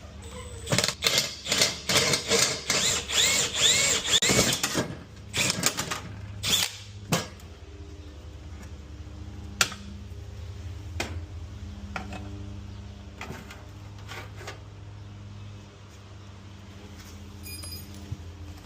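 Rapid metallic clicking and rattling of tool work on a car lock, dense and loud for the first five seconds, then scattered single clicks over a low steady hum.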